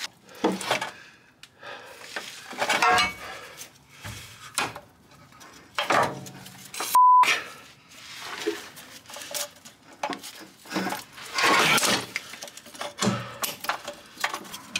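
Irregular metal clanks, knocks and scrapes as a manual gearbox is wrestled free from under the car. About seven seconds in comes a short, loud censor bleep, a single steady tone.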